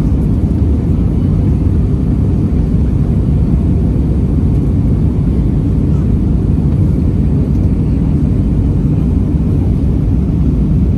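Steady low cabin noise inside an Airbus A320-200 in flight on approach: engine noise and rushing airflow heard through the fuselage, even throughout.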